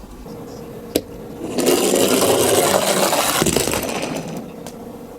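A die-cast toy car rolling down a hard sloped track. There is a sharp click about a second in, then a loud rattling roll that builds, holds for about two and a half seconds and fades away.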